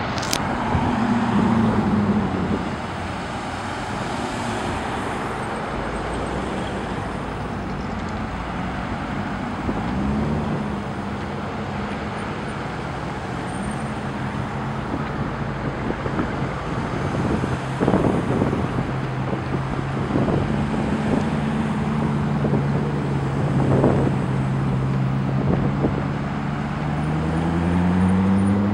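A slow procession of Chevrolet Corvettes passing close by, their V8 engines running at low speed over tyre noise. Near the end one engine's note rises as it speeds up.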